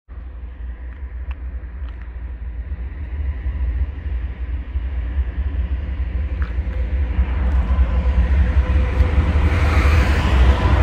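Train approaching: a low rumble with a faint steady hum above it, growing steadily louder as it nears.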